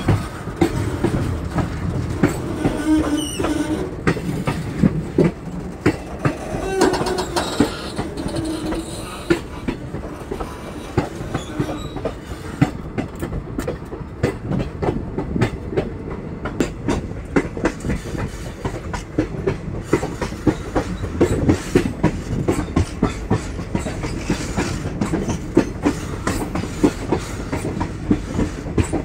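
Train running along the track, heard from aboard: the wheels clack over rail joints in a fast, uneven run of clicks over a steady low rumble.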